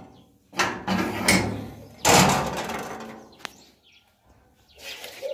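A door being opened to go out: several knocks and rattles, the loudest a bang about two seconds in that dies away over about a second, then a single sharp click.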